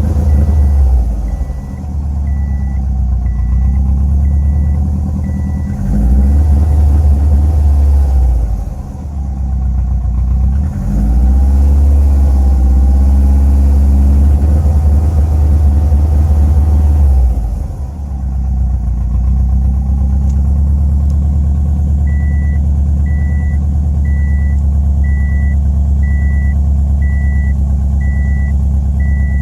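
2007 Subaru Impreza WRX STI's turbocharged 2.5-litre flat-four idling roughly, surging and sagging several times, with the misfire on all four cylinders. A high electronic chime beeps evenly, about one and a half times a second, at the start and again from about two-thirds of the way in.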